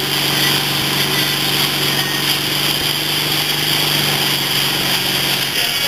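MasterCraft ski boat's inboard engine running steadily at towing speed, a constant low hum under the rush of wind and churning wake water. The engine hum cuts off shortly before the end.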